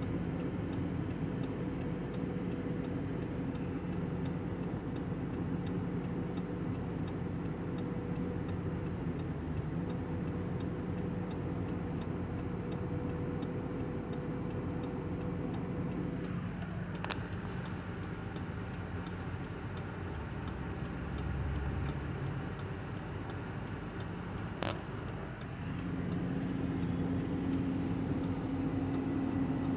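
An engine running steadily at idle with a fine regular ticking over it; its note drops away for several seconds in the second half and then comes back, and two sharp clicks stand out, about 17 and 25 seconds in.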